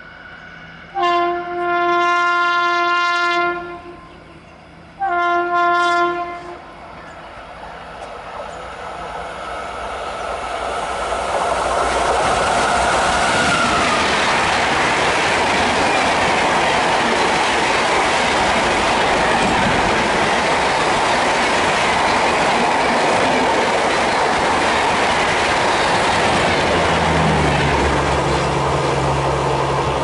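Two horn blasts from a WAP-5 electric locomotive, the first about two and a half seconds long and the second about a second and a half. Then the rush and clickety-clack of the express passenger train swell up and stay loud as it passes at speed.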